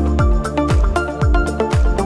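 Background music with a steady kick drum, about two beats a second, under sharp percussion and sustained synth-like notes.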